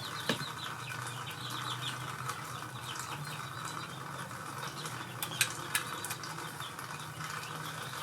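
Young chicks peeping: many short, high, falling chirps, thickest in the first few seconds, over a steady low hum. A few light clicks come about five to six seconds in.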